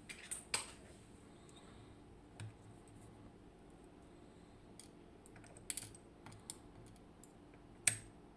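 Irregular small sharp clicks and taps of tools and small lock parts being handled while a Mul-T-Lock Integrator dimple lock cylinder is taken apart, with the loudest clicks about half a second in and near the end.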